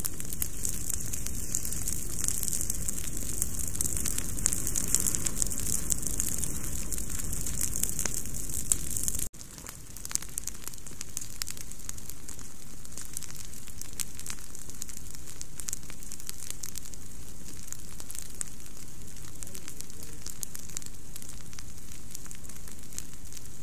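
Leaf-litter fire of a controlled burn crackling: a steady hiss with many small sharp pops, picked up by a trail camera's microphone. About nine seconds in the sound cuts out for a moment where one recording ends and the next begins, then the crackling comes back quieter and builds again.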